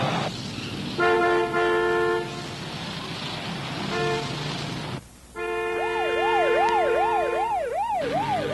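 Traffic noise with a car horn blaring twice, the second time briefly. Then a horn is held and a siren joins it, yelping rapidly up and down, about two to three sweeps a second.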